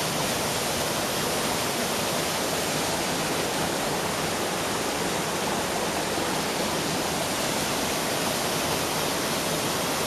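Waterfall pouring into a rocky pool, with the stream running over rocks below it: a steady, even rush of water.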